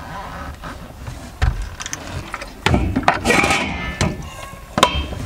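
Handmade steel rebar stand being handled and set in place, giving several separate metal knocks and clanks.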